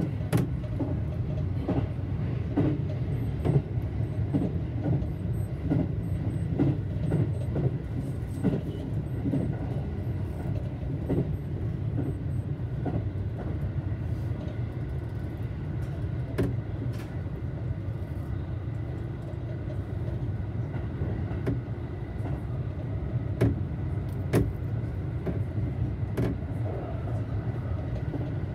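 Electric train running along the track, heard from inside the front car: a steady low rumble with a faint whine, and now and then a sharp click.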